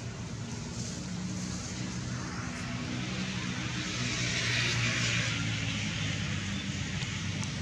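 Distant engine noise from something passing: a steady low hum with a rushing sound that swells to a peak around the middle and then eases off.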